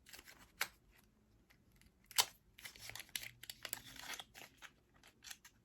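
Makeup packaging being handled: short rustling and crinkling with scattered sharp clicks, the loudest click about two seconds in.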